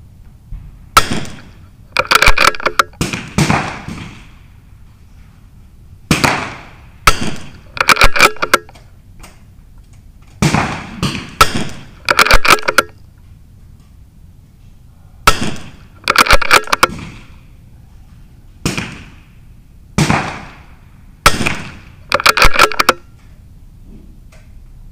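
.22 LR rimfire rifle shots on a benchrest firing line. The sharp cracks come irregularly, some single and some in quick clusters of two to four, and each is followed by a short echoing tail.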